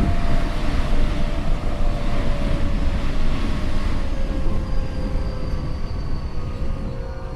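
Tokyo Metro 8000 series train with Mitsubishi IGBT VVVF traction equipment running, heard on board. Its motor and inverter tones slowly fall in pitch while the running noise eases off as the train slows, with a short knock right at the start. The uploader notes this car's motor sound is abnormal and muddy-sounding at most speeds.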